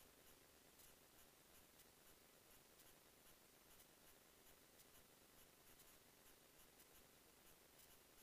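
Near silence: a faint steady hiss with scattered soft ticks.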